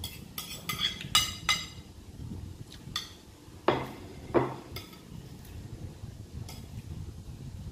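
Metal spoon and fork clinking against a plate and a glass baking dish: a quick run of clinks in the first second and a half, then two louder knocks about four seconds in.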